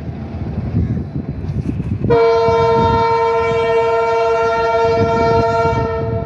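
Indian Railways locomotive air horn sounding one long steady blast of about four seconds, starting about two seconds in, over the low rumble of the train running.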